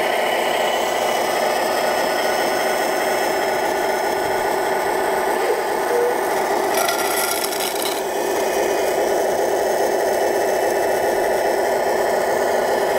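Wedico Cat 966 RC scale wheel loader working, its drive and hydraulics giving a steady rasping mechanical drone, with a brief scratchier patch about seven seconds in.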